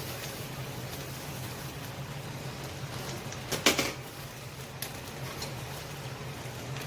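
Ground beef frying in a pan, a steady sizzle over a low hum, with a short clatter a little past halfway.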